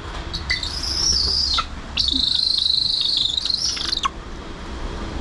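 Golden eagle giving two long, high-pitched trilled calls, the second about twice as long as the first, each ending with a quick drop in pitch.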